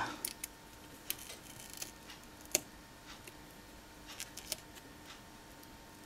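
Faint scattered clicks and light scrapes of a craft knife working at the small tactile button switches on a microwave control board, prying them open; the sharpest click comes about two and a half seconds in.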